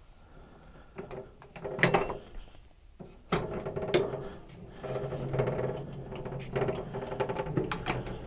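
Foot-operated caster levers of a steel mobile tool base stepped on, giving sharp metallic clanks and clicks as the spring-loaded swivel casters are set or retracted; the loudest clanks come about two and four seconds in. A few seconds of continuous rattling and rumbling follow in the second half.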